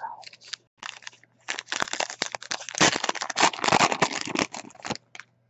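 Wrapper of a baseball card pack crinkling and crackling as it is torn open and the cards are handled. There are a few light rustles at first, then a dense run of crackles from about one and a half seconds in that stops shortly before the end.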